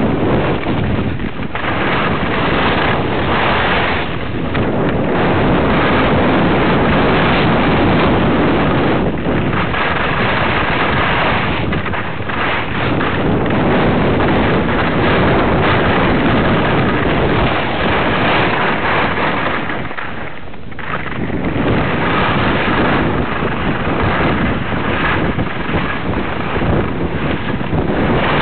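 Wind buffeting the microphone of a camera carried at speed down a ski slope, a loud, steady rush of noise that drops briefly about two-thirds of the way through.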